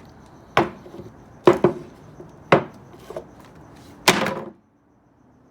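Hammer blows striking and crushing aluminium soda cans: four sharp strikes about a second apart, the second landing as a quick double hit and the last trailing off in a short crunch.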